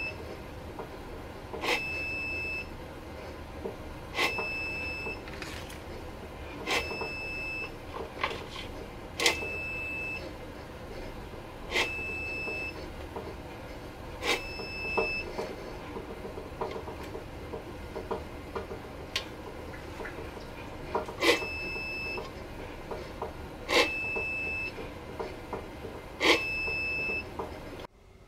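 A short electronic beep, each one starting with a click, repeating about every two and a half seconds, over soft handling clatter.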